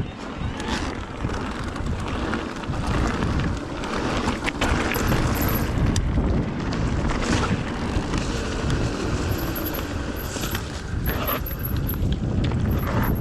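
Electric mountain bike riding over a rough trail: steady tyre and wind rumble with scattered knocks and rattles from the bike. Short runs of faint, very high chirps come in now and then from about the middle on.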